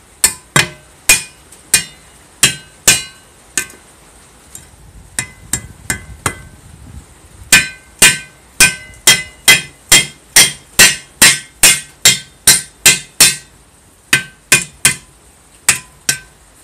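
Hammer blows on metal, each with a short metallic ring, driving a square steel tube down into a tin-can rocket stove. A steady run of blows, a pause of a few seconds with only light knocks, then a faster run of about three blows a second that thins out near the end.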